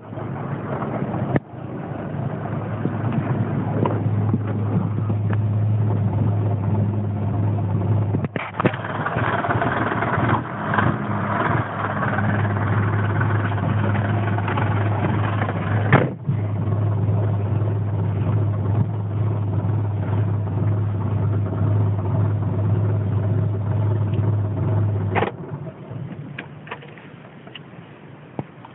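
A 2000 Land Rover Freelander's 1.8 K-series four-cylinder petrol engine running with a steady hum, then stopping abruptly near the end. The owner puts the rough running and cutting out down to a failing fuel pump losing fuel pressure.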